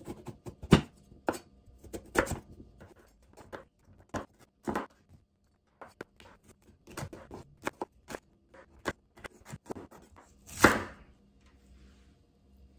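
Chef's knife chopping a peeled root vegetable on a bamboo cutting board: irregular single knocks of the blade through the vegetable onto the wood. Near the end comes one louder, longer scrape.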